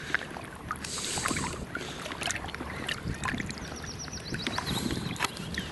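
A person wading through shallow floodwater in a wading suit, the water sloshing and swishing around the legs with each step. A bird chirps a quick run of short high notes about four seconds in.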